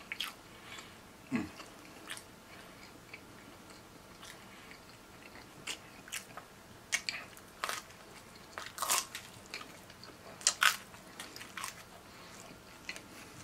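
A person chewing and biting pepperoni pizza, with irregular sharp mouth clicks and smacks. Several louder smacks come in the second half.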